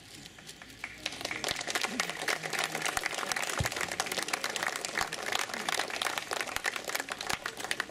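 A crowd applauding, the clapping swelling up about a second in and carrying on steadily, with a few voices underneath.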